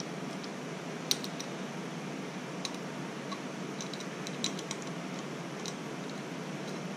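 Small metallic clicks and taps of hand tools and fingers working the tool bit and set screw of a fly cutter on a stopped Bridgeport mill spindle, the sharpest click about a second in, over a steady background hum.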